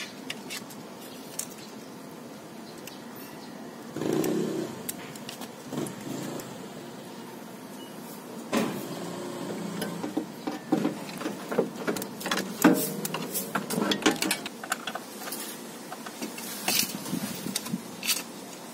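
Irregular clicks, knocks and metallic clinks of tools and parts being handled while a car's power window regulator is worked on, busiest in the second half.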